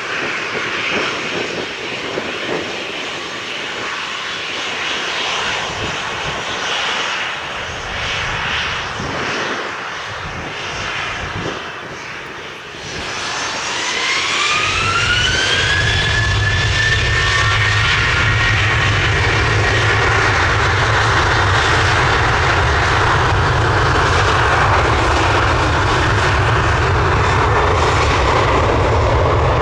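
Boeing 737-800's CFM56-7B jet engines running at low thrust, then about 13 seconds in spooling up with a rising whine to takeoff thrust. The sound then becomes loud and steady with a deep rumble.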